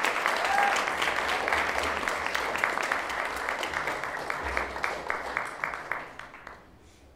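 Audience applauding, dense clapping that dies away about six seconds in.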